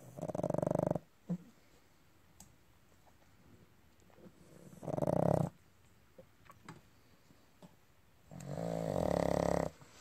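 Pug snoring in her sleep: three snores about four seconds apart, the last one the longest.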